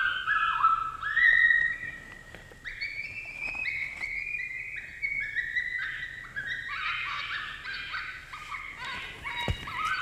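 FoxPro electronic predator caller playing a coyote distress sound: a continuous string of high, whining yelps that slide and step up and down in pitch, some overlapping. A single soft knock sounds near the end.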